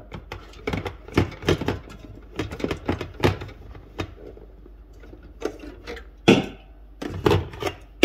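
Aluminium drink cans knocking and clunking against each other and the cooler's shelf and interior as they are pulled one by one out of a small 4-litre mini cooler. A string of irregular sharp knocks, with a couple of louder clunks near the end.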